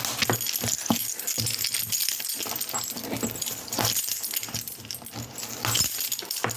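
A bunch of keys laden with keyring charms jangling and clinking in the hand, with irregular scraping and rustling as a key is worked into the parcel's packaging to cut it open.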